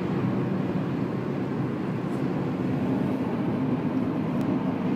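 Steady low drone of road and engine noise heard from inside the cabin of a moving car.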